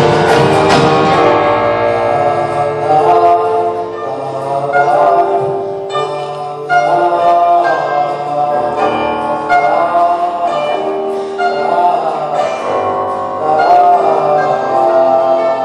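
Live band music from a school rock band: the dense, loud full-band sound drops away about a second in, leaving sustained ringing notes under a wavering melodic line.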